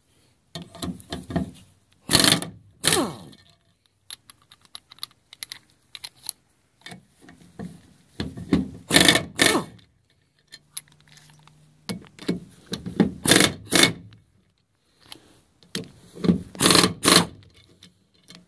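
Impact wrench with a socket zipping loose the nipple cups on a Ford 6.0L diesel high-pressure oil rail, in several short bursts of about a second each with pauses between, as the tool moves from one cup to the next.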